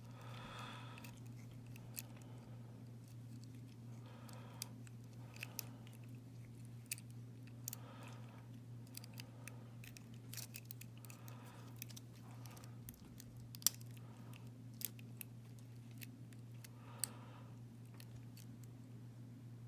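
Faint, irregular metallic clicks and ticks of a lock pick and tension wrench working the pins of a Wink Haus half euro cylinder, over a steady low hum.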